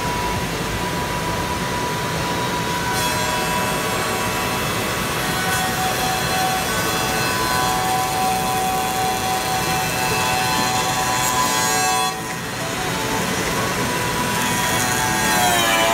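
Spindle sanding drums of a CNC four-axis copy-shaping sanding machine running against curved hardwood chair parts: a steady abrasive rubbing noise with a held motor whine, falling in pitch near the end.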